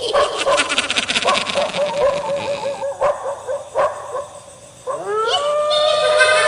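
A dog yipping rapidly several times a second, then about five seconds in breaking into a long howl that rises and holds.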